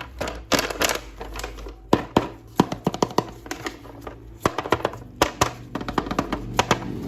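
Irregular sharp clicks and taps from a plastic action figure and its parts being handled, over quiet background music.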